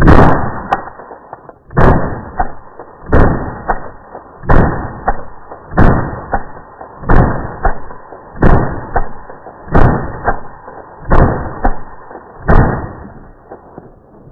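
Rifle fitted with a Falcon muzzle brake firing about ten shots at an even pace, roughly one every 1.3 seconds. Each shot is a dull, muffled boom that dies away over about a second, with a smaller knock half a second after it.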